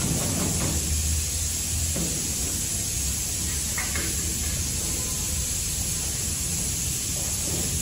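A steady hiss and low hum run throughout. Over them are a few light knife taps on a plastic cutting board in the first two seconds, and a soft clatter about four seconds in as cut onion is scraped onto a steel plate.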